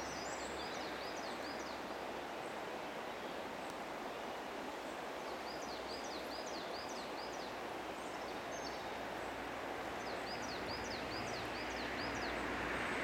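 Steady rush of flowing river water, with a songbird singing a short phrase of quick repeated high notes three times, near the start, about five seconds in and about ten seconds in. A broader rushing sound swells near the end.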